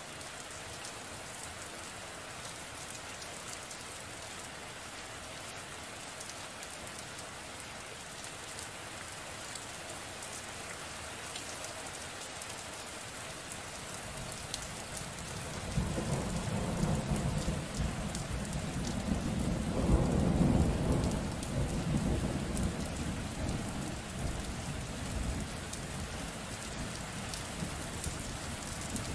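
Steady rain falling, with a long low rumble of thunder that swells about halfway through, peaks a few seconds later and slowly dies away.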